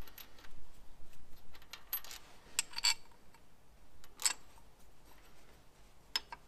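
Plasma-cut steel bracket clinking and scraping against the bolts on the side of a tractor engine as it is fitted over them by hand: a scatter of light metallic clicks, the sharpest about three seconds in and again a little after four and six seconds.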